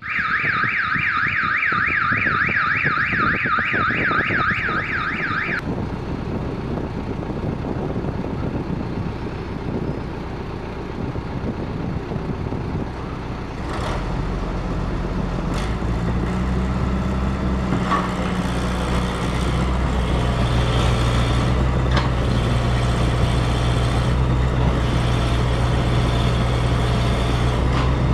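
Double E remote-control toy excavator: a fast warbling, siren-like electronic sound for the first five and a half seconds, then the whir of its electric motors as the boom and bucket move. A steady low hum joins about halfway.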